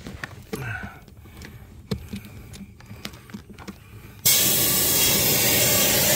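Faint clicks and handling noise, then a little over four seconds in a compressed-air engine cleaning gun starts spraying soapy water with a sudden, loud, steady hiss.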